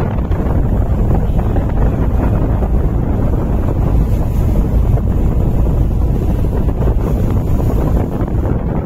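Wind buffeting the microphone on the open deck of a ship underway, a steady low rushing noise with the ship's rumble and water sounds beneath it.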